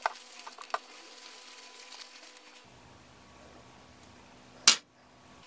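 Paper towel crinkling and rubbing while oil is wiped onto a wooden spoon, with a few small clicks. A single sharp knock comes near the end and is the loudest sound.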